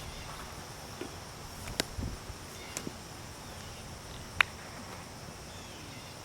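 Insects chirring steadily in the background. A few sharp clicks break in, the loudest about four and a half seconds in.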